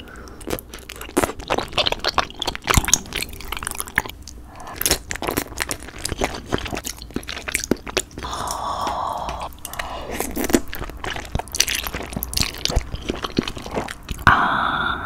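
Close-miked chewing of spicy braised chicken and glass noodles: wet, sticky mouth sounds and bites in an irregular stream of small clicks. Two short hissing sounds come in, one about eight seconds in and one near the end.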